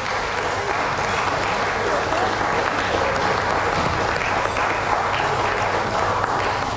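Audience applauding steadily, with a few voices among the clapping.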